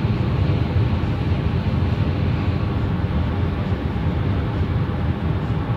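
Steady road and tyre noise with engine drone, heard from inside a car travelling on a highway.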